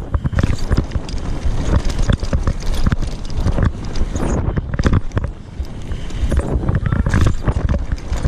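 Mountain bike being ridden over rough ground, rattling and knocking irregularly over a steady low rumble.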